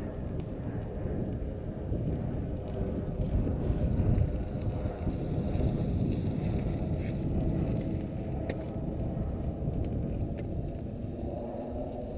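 Steady low rumble of a mountain bike ride on a wet gravel road: wind on the camera's microphone and tyres rolling over wet gravel, with a few faint clicks.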